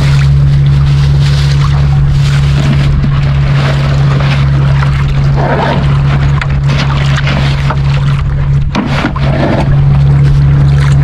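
Small outrigger boat's engine running at a steady low drone, with a rushing hiss of wind and water over it.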